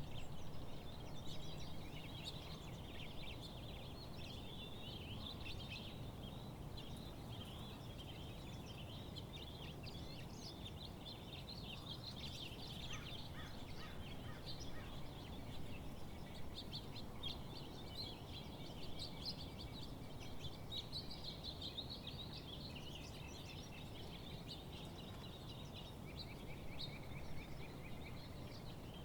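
A chorus of many birds chirping and singing at once, in dense overlapping calls, over steady low background noise.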